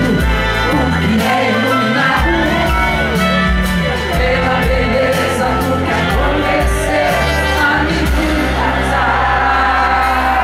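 A male singer with a high voice sings live into a handheld microphone over an amplified band, with sustained bass notes and a steady beat.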